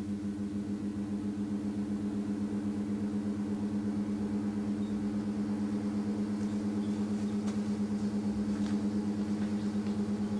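Variable-speed electric blower running steadily at low speed: a hum with a fast regular pulsing. A few faint ticks come in the second half.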